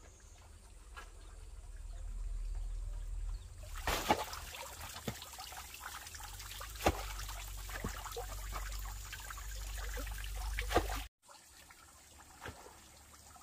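Water trickling steadily, with a few sharp knocks of wood on wood. Both stop abruptly about eleven seconds in.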